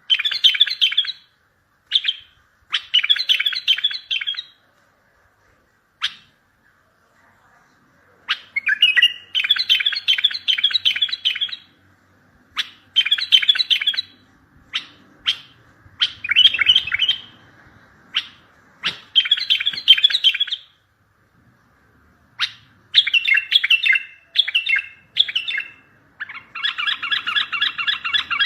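Bulbul song: phrases of quick, chirping notes, each a second or two long, repeated with short pauses between them. Near the end comes a longer, even run of rapid notes.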